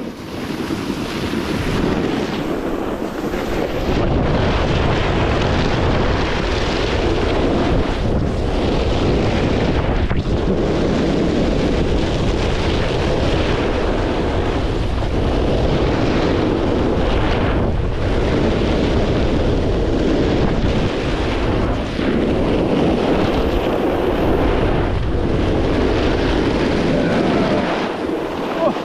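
Wind buffeting the microphone during a fast descent of a groomed ski slope, mixed with the scrape of edges carving the snow, swelling and easing with each turn. The noise falls away near the end as the riding slows to a stop.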